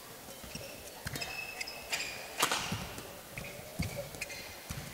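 Badminton rally: several racket hits on the shuttlecock, the sharpest about halfway, with squeaks of court shoes on the mat and thuds of footsteps and lunges.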